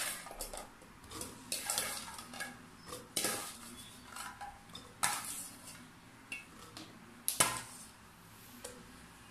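Metal saucepan clinking and knocking against the glass blender jar as chilies are tipped from it into the jar: a handful of irregular knocks, the loudest about five and seven and a half seconds in.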